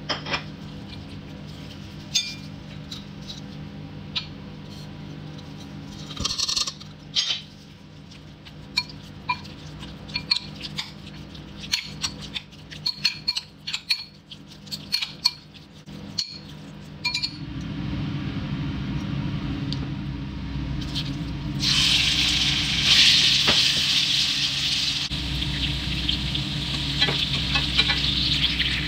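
A spoon clinking and scraping against a glass bowl as chunks of raw chicken are tossed with spices. About halfway through, chicken pieces start sizzling as they fry in hot oil in a pan, stirred with a slotted spatula. The sizzle gets much louder a few seconds later.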